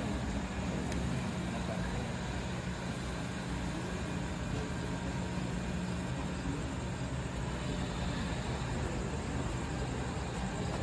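Tren Maya passenger train standing at the platform with its engine running, a steady low hum.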